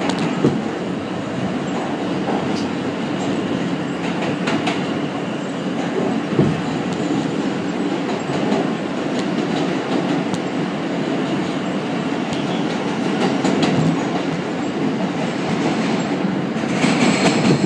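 R160 subway train running through a tunnel, heard from inside the car: a steady rumble of wheels and running gear with scattered clicks of rail joints, growing louder and brighter near the end.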